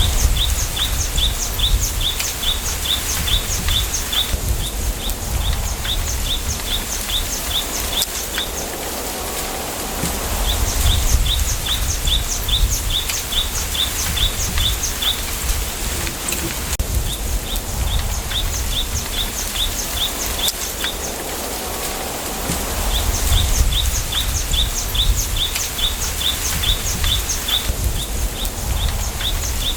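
Wind through a bamboo grove: a steady rustling hiss with low gusty rumbles on the microphone. Over it a small bird repeats rapid high chirps, about four a second, in bouts of a few seconds with short pauses between.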